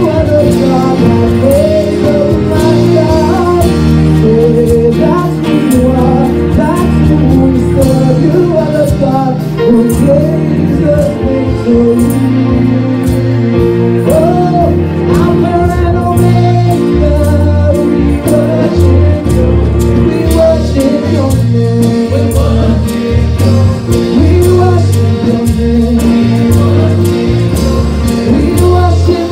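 Live gospel praise-and-worship music: singing over held chords, deep bass and a steady drum beat.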